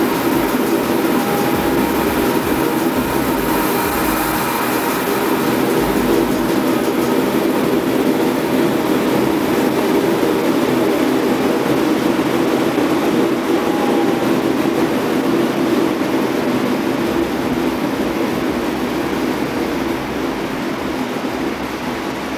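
Gas-fired ribbon burner forge running with its forced-air blower: a steady, loud rushing roar that eases slightly near the end. This is the burner's first test firing, and its flame is not burning well.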